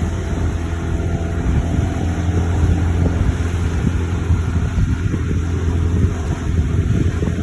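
A boat's engine running steadily with a low hum, with wind buffeting the microphone and water rushing past the hull.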